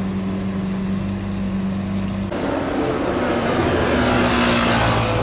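A Lamborghini Murciélago's V12 engine running at low speed with a steady drone. Then an Aston Martin V12 coupé accelerates past, growing louder and rising in pitch to a peak near the end.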